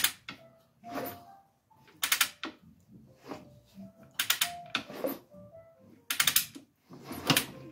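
Repeated short bursts of rapid ratchet clicking as the Wards Riverside (Benelli) 250 single-cylinder engine is turned over by hand. The engine is being cycled through its strokes to check the valve rockers after setting valve clearance.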